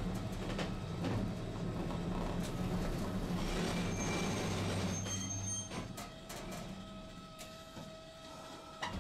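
Tosaden streetcar heard from inside the car: a steady low running hum that fades about halfway through as a hiss rises, then a quieter stretch with a faint steady whine and a few clicks.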